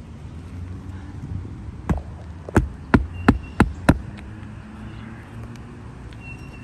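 Hammer driving a roofing nail into an asphalt 3-tab shingle: one light tap about two seconds in, then five sharp blows in quick succession.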